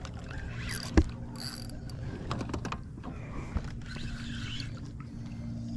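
Fishing reel being cranked while a redfish is played, with mechanical gear whirring and small clicks over a steady low hum; a sharp knock about a second in.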